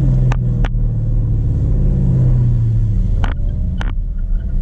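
Car engine running with a steady low note, its pitch easing down about two seconds in, with a few sharp clicks or knocks over it.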